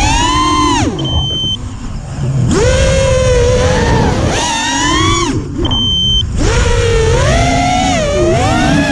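FPV drone's brushless motors whining in flight, their pitch rising and falling with the throttle and dropping away twice. Each dip holds a short, steady high beep.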